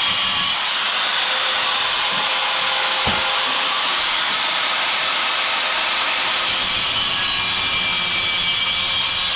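Angle grinder cutting sheet steel, a steady loud grinding whine without a break.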